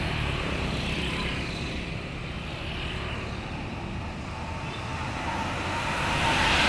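Road traffic noise, a steady rumble and tyre hiss, with a passing vehicle growing louder near the end.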